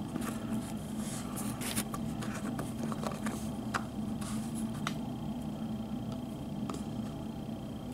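Fingers pressing and peeling Play-Doh in a plastic fruit mold: scattered soft taps and clicks over a steady low hum.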